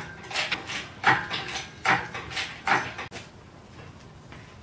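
An irregular run of clunks and knocks, about two a second, stopping about three seconds in.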